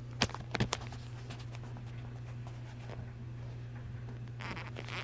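A few light clicks and taps from handling things on a fly-tying bench, clustered in the first second, with a short soft rustle near the end, over a steady low electrical hum.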